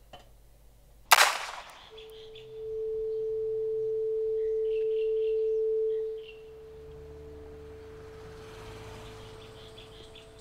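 A single steady pure tone, like a sine-wave ringing, swells over about four seconds, then drops suddenly to a quieter level and holds. A sharp knock comes about a second in, and faint bird chirps sound over a low outdoor rumble.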